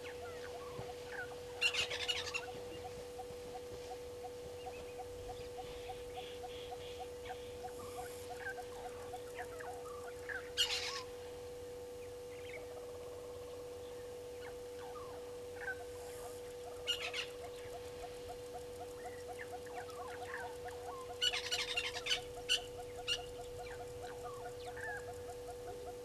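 Brown-headed parrots at their nest hollow making short, harsh, scratchy bursts, four or five times, the last a quick run of several. Under them run a steady hum and a fast, even ticking.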